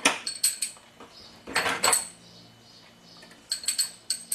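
Loose steel engine valves from a Willys L-head clinking and ringing against each other as they are sorted through to pick out one valve. The clinks come in three short clusters: at the start, in the middle, and near the end.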